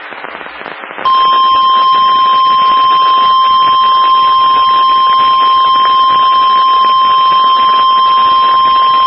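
NOAA Weather Radio 1050 Hz warning alarm tone sounding for a severe thunderstorm warning: one loud, steady high beep that cuts in about a second in and holds without a break. A hiss runs underneath, and it is heard alone before the tone starts.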